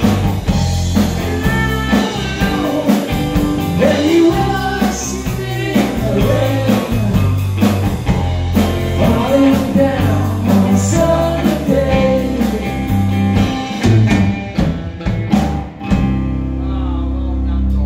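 Live rock band with male lead vocals, electric guitars, bass guitar and drums playing the closing section of a song. About fourteen seconds in, the drums play a run of hard accents, and the band then holds a final sustained chord.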